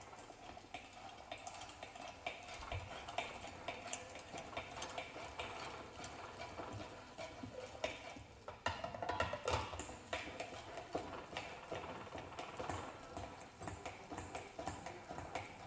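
Irregular light clicking and knocking of a manual meat grinder's parts being handled and turned, with a denser, louder run of clicks about nine seconds in.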